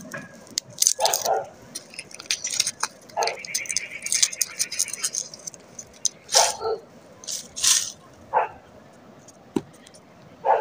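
Dry, papery garlic skins crackling and rustling as cloves are peeled by hand over a plastic plate. The sound comes as irregular crackles, with several short louder bursts.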